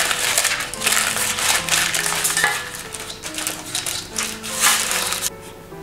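Crumpled paper rustling and crackling in uneven surges as a cake tin is rubbed with butter and moved about on it, over soft background music. The rustling dies away shortly before the end.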